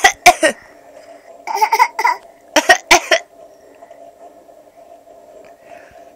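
A small child coughing in short, sharp bursts: a few coughs right at the start and another couple about two and a half seconds in, with a brief voiced sound between them. A faint steady hum runs underneath.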